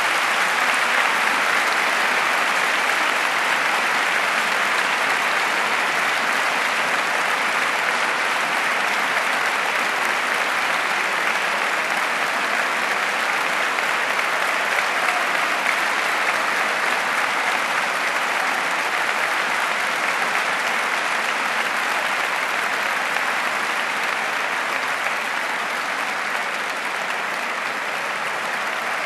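Concert audience applauding, a dense steady clapping that eases off slightly near the end.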